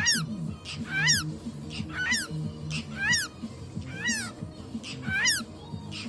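Cockatiel calling, one short rising-and-falling chirp about once a second, six times.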